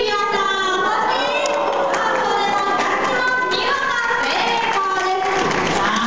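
Several high-pitched voices sounding at once, sing-song and overlapping.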